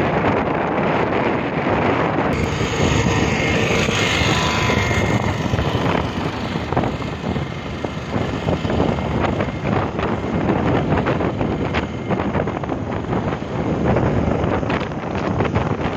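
Wind buffeting the microphone over the steady road noise of a vehicle travelling at speed along a highway: a loud continuous rush with rapid gusty crackle.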